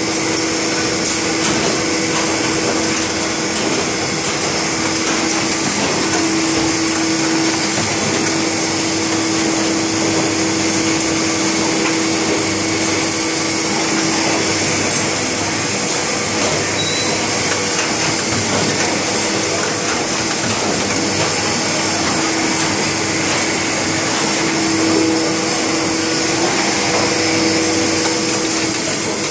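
Stahl BL 200 bookbinding machine running in production: a steady mechanical whir and hiss, with a steady hum that drops away about halfway through and returns near the end.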